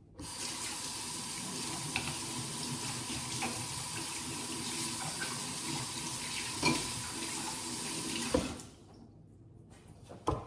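Water running from a tap into a sink for about eight seconds, with a couple of small knocks, then turned off.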